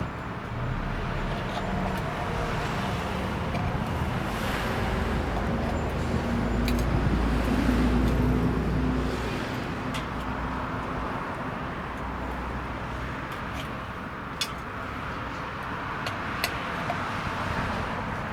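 Steady rumble of road traffic, with a vehicle passing and swelling louder about 6 to 9 seconds in, and a few light clicks.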